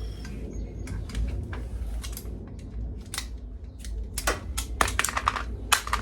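Short sharp clicks and crackles of hands working on motorcycle wiring, coming thicker and louder in the last two seconds, over a steady low hum.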